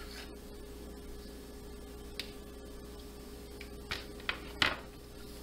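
Steady low electrical hum, with a few scattered light knocks and clicks; the loudest comes about four and a half seconds in.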